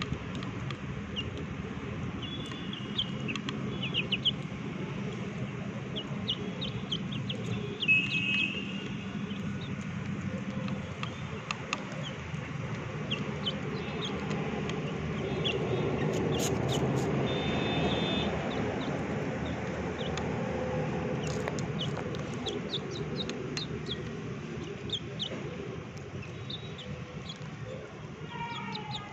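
Chickens feeding from a steel bowl of cooked rice: many short pecking clicks with a few brief chirps and clucks, over a steady background rumble that swells in the middle and fades near the end.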